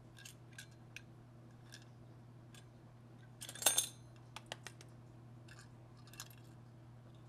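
Small metal hard-drive parts clicking and clinking as they are handled and set down, with the loudest cluster of clinks about three and a half seconds in. A steady low hum runs underneath.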